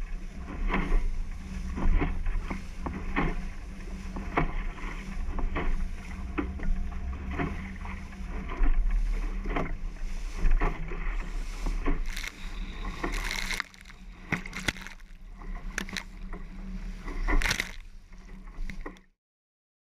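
Water rushing and slapping against the hull of a Leisure 17 bilge-keel sailboat heeled under sail in choppy water, with frequent sharp splashes of spray and a heavy wind rumble on the microphone. The sound cuts off suddenly just before the end.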